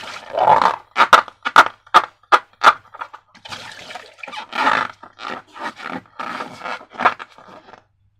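Slime being squished and worked: wet squelches with a run of sharp pops about one to three seconds in, then longer sloppy squelching stretches.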